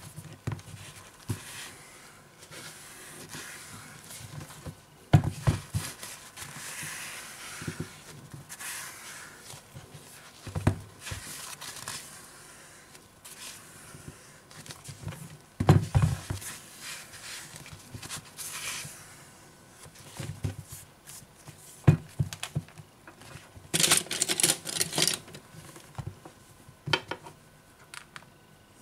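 A paper tissue rubbing and wiping over a tablet's glass, with the tissue rustling and crinkling, and a few sharp knocks as the tablet is handled and set down. A dense burst of crinkling comes near the end.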